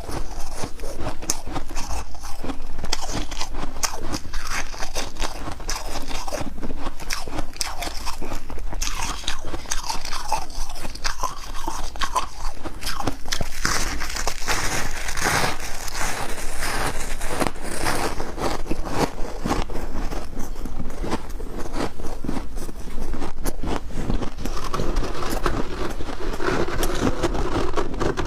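A person biting and chewing frost ice, a dense run of crunches.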